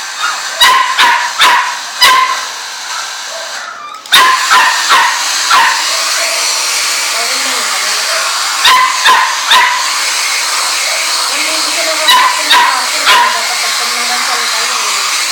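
Small dog, a Chihuahua, yapping in four quick runs of three or four high barks each. A steady hiss comes in about four seconds in and stays under the barks.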